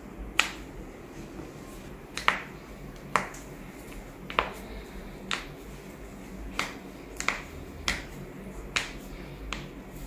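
About ten sharp cracking pops, coming roughly one a second at uneven intervals, a few of them doubled. They are the ankle and toe joints cracking as they are manipulated by hand.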